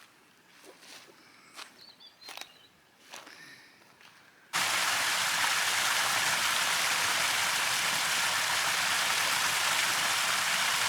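A few soft footsteps, then, from about four and a half seconds in, a sudden, loud, steady rush of running water.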